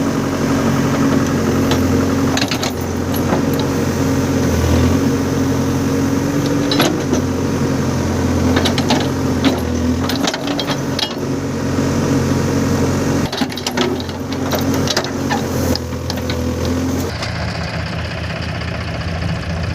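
Heavy machinery's diesel engine working hard, its note wavering, with scattered sharp knocks; about three-quarters of the way through it drops back to a lower idle.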